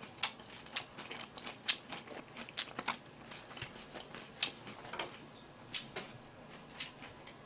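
Eating sounds: a string of small, irregular clicks and taps from chopsticks picking at food in plastic takeout trays and from chewing.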